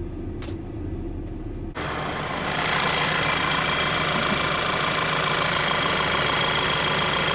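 2012 VW Eos petrol engine running at idle with a low, steady hum. About two seconds in, the sound changes suddenly to a louder, hissing mix with a faint steady high whine.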